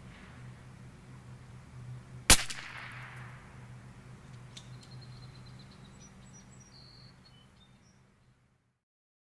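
A single .22 LR shot from a Bergara B14R rifle firing a CCI Standard Velocity round: one sharp crack a little over two seconds in, with a short ringing tail. Faint bird chirps follow before the sound fades out.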